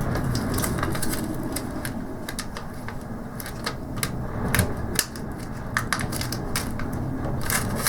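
Irregular light clicks and taps of plastic parts being handled: the ZX Spectrum's keyboard being plugged in and its case fitted together.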